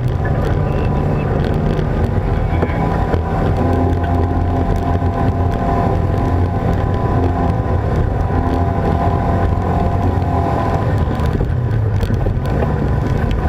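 Off-road side-by-side's engine running steadily as the vehicle drives a dirt trail at an even pace, with a steady higher whine riding over the engine drone.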